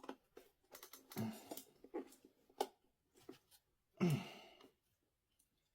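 Hands working an e-scooter's rubber tyre and inner tube on the wheel rim: irregular clicks, taps and rubbing, the loudest a short scrape about four seconds in.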